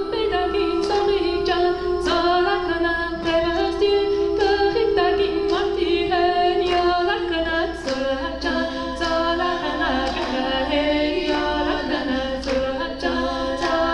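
Choir singing unaccompanied, a low held note under a moving melody; the held note steps down a little about eight seconds in.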